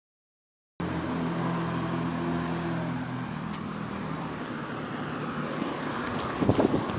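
Road traffic at a street junction: a vehicle engine's steady hum that fades out about three seconds in, leaving a general traffic haze. Low buffeting thumps come in near the end.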